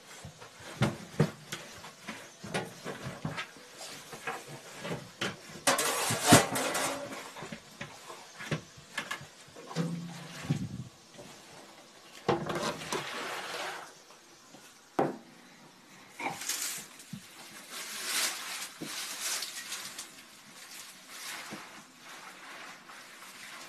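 A dog shifting about on a wooden sauna bench: scattered clicks and knocks from claws and body on the boards, with several longer noisy bursts between them.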